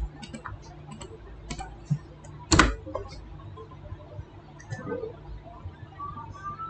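Scattered clicks from a computer keyboard, with one much louder keystroke about two and a half seconds in, over a faint steady hum.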